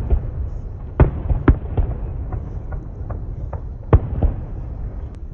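Fireworks going off: sharp booming bangs with smaller cracks and a low rumble between them. The loudest bangs come about a second in, half a second later, and about four seconds in.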